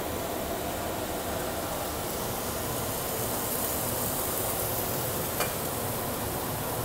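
Diced onions frying in a stainless steel pot: a steady sizzle as they are stirred with a wooden spatula, with a faint tick about five and a half seconds in.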